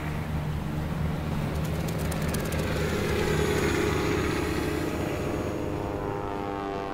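Steady low drone of an aircraft's engines in flight, a higher tone swelling in the middle, with a short run of faint ticks about two seconds in.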